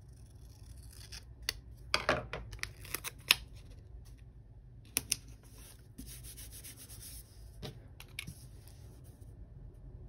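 Small craft scissors snipping around a paper sticker: a cluster of sharp cuts a couple of seconds in and one more near the middle. Past the middle comes a short rubbing of fingers on paper as the sticker is pressed down.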